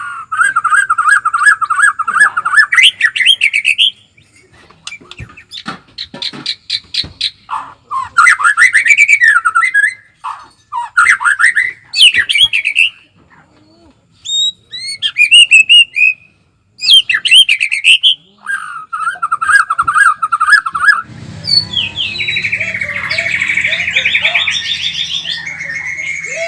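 White-rumped shama (murai batu) singing in loud, varied phrases: fast repeated trills, rising whistles and chattering notes with short pauses between them. Near the end a steady low hum comes in beneath a denser run of chatter.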